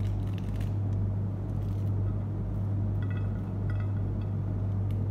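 A steady low hum runs under faint crackling and small clicks as fruit peel is pulled apart by hand.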